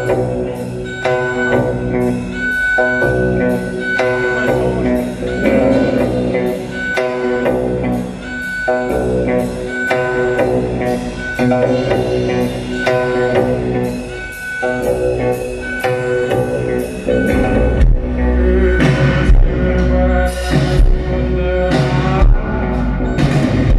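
Live post-rock band music with drums, held pitched lines and a steady ticking beat of about two a second. About 18 seconds in, a heavy low end swells in and the music grows louder and denser.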